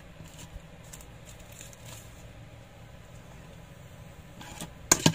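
Thin clear plastic sheet crinkling under fingertips as it is pressed down over a watch dial: a few faint rustles, then a burst of loud crackles near the end.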